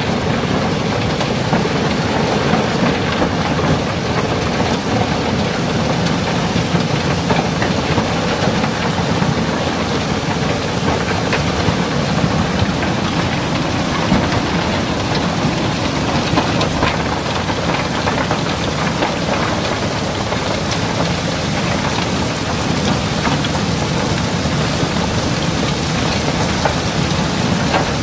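River cobblestones and crushed coal pouring through a barge's unloading opening: a steady, dense clatter of stones knocking and sliding over one another.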